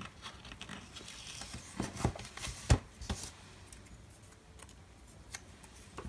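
Quiet handling of sticker sheets and planner paper: a few short sharp clicks and soft rustles as small stickers are peeled off and pressed down, the loudest click about halfway through.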